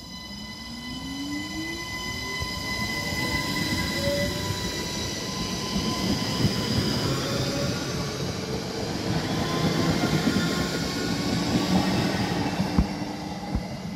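Siemens Desiro ML (SNCB AM08) electric multiple unit pulling away and passing close by. Its traction motor whine rises steadily in pitch as it accelerates, under growing wheel and rail noise, with a few sharp clicks near the end.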